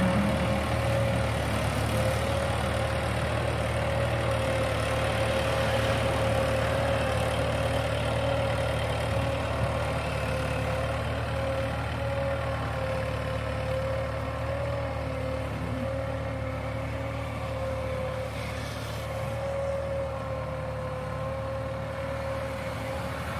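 Farm tractor engine running steadily under load while pulling a harrow through soil, with a steady whine above the low engine note. It fades gradually as the tractor drives away.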